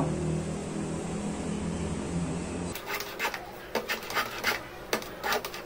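A steady low hum, then from about three seconds in a quick run of short rasping strokes, roughly three a second: a metal hand plane shaving wood off the edges of a wooden knife blade to round it.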